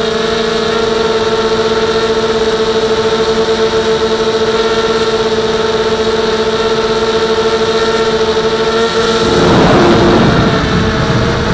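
Blade 200QX quadcopter's brushless motors and propellers, heard from the onboard camera, humming steadily at a constant pitch. About nine seconds in a rougher rush of noise swells over the hum for a couple of seconds, then the steady hum returns.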